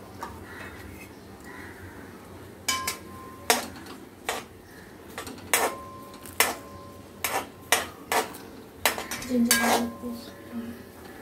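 A spoon clanking and scraping against a metal wok while stirring chopped onions in melted butter. The strikes start about three seconds in and come irregularly, several with a short metallic ring.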